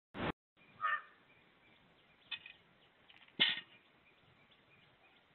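A brief burst of noise that cuts off sharply at the start, then a short bird call about a second in and a few sharp clicks, the loudest about three and a half seconds in, as an Indian peacock pecks wheat grain from a metal pan.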